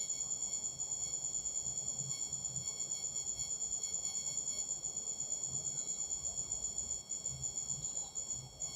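Faint, steady high-pitched chirring tone that pulses about six times a second, with no speech.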